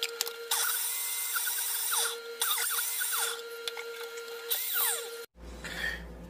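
Countertop blender motor running and whirring, blending a liquid marinade. The whir comes in about three surges before cutting off sharply near the end.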